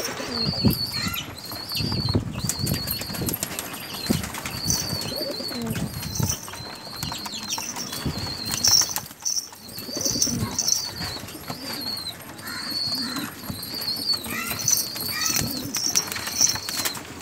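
Pigeons' wings flapping and clattering in bursts as the birds are grabbed and handled in a crowded pen, with low pigeon coos among them. A short high chirp repeats a little more than once a second throughout.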